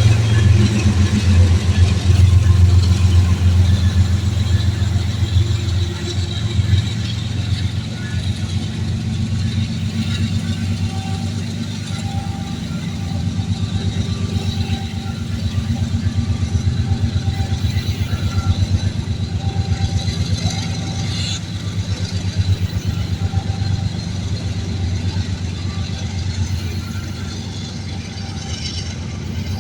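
Freight train rolling past: a steady low rumble with a fast, even clatter running through it.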